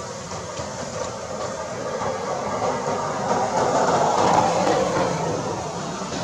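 A passing vehicle: a steady noise that swells to a peak about four seconds in and then fades.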